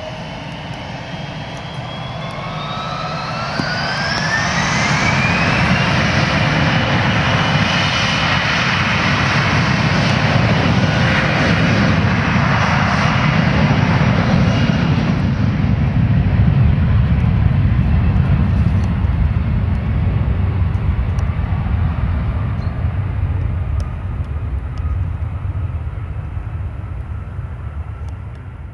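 Bombardier CRJ1000 regional jet's two rear-mounted General Electric CF34 turbofans spooling up for takeoff, with a rising whine over the first few seconds. This gives way to a loud jet roar during the takeoff roll that peaks past the middle and fades as the jet lifts off and climbs away.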